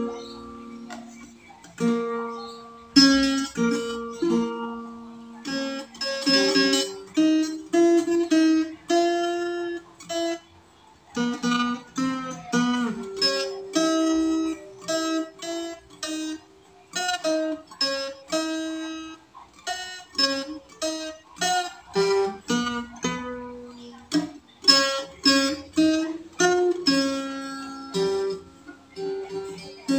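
Small acoustic guitar fingerpicked: a melody of single plucked notes mixed with chords, each note ringing and fading before the next.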